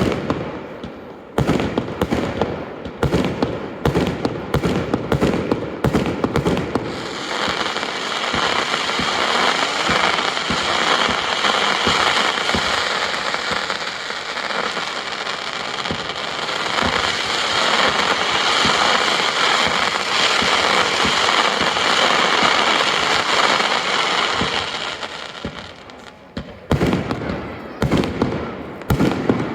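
Aerial fireworks: a rapid series of sharp bangs from bursting shells for the first several seconds, then a dense, continuous crackling for about eighteen seconds, and more bangs near the end.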